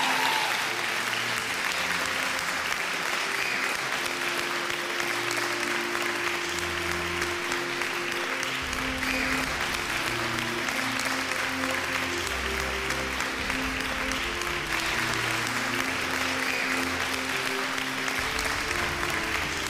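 Large audience applauding steadily, with instrumental music playing underneath.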